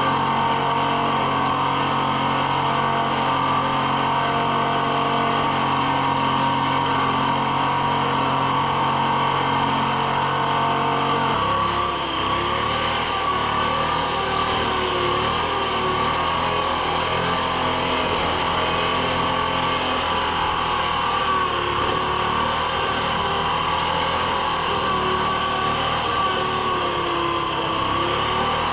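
Treefarmer cable skidder's engine running steadily while the machine drags a log through snow. About eleven seconds in, the engine note changes abruptly to a different steady pitch, with a wavering tone over it.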